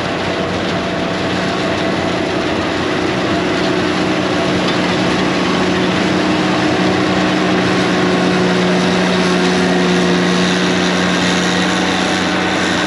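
MacDon self-propelled windrower running steadily as it passes close by cutting rye, its diesel engine giving a steady drone. It gets a little louder as it draws nearest.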